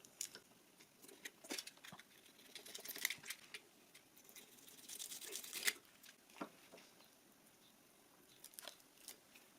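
Double-sided tape being handled and pressed onto a wooden sander drum: faint scattered clicks and short rustles, loudest a little past the middle.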